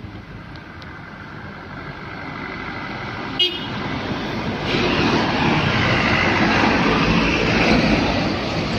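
Road traffic with heavy trucks going past close by, the engine and tyre noise building up about halfway through as a fuel tanker truck approaches and passes. A short horn toot sounds about three and a half seconds in.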